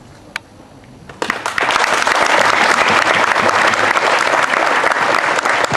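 Audience applause breaking out suddenly about a second in and carrying on steadily, after one brief sharp sound just before it.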